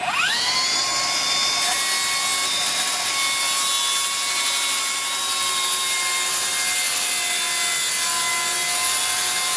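Milwaukee M18 Fuel brushless cordless track saw spinning up and cutting along its guide rail through a board at a bevel: a steady high whine that holds its pitch through the cut.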